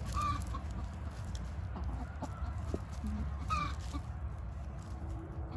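Backyard Orpington hens clucking, with a few short calls, the clearest right at the start and about three and a half seconds in.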